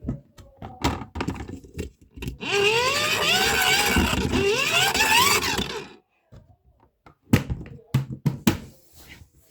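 Plastic knocks and thunks from a mini washing machine being handled. In the middle come about three and a half seconds of loud noisy running with repeated rising whines.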